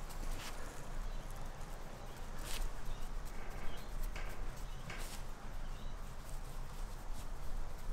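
A German wirehaired pointer puppy on its back in grass, scuffling and rustling as a hand rubs it and it mouths at the hand, with a few short sharp sounds over a low steady rumble.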